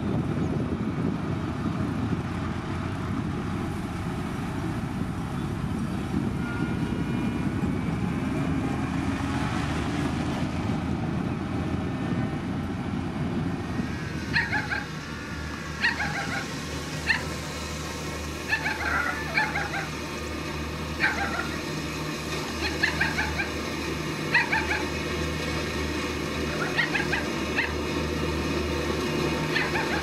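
A dog barking repeatedly, short barks about once a second from about halfway through, over the steady low rumble of an engine running.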